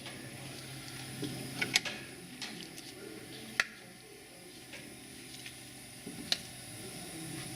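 A few sharp, separate clicks and knocks of tools and parts being handled during a brake pad job, over a steady low hum.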